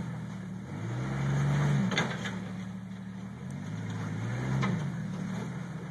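Jeep Cherokee XJ engine revving as it crawls over rocks, its pitch rising and falling back in two swells. There is one sharp click about two seconds in.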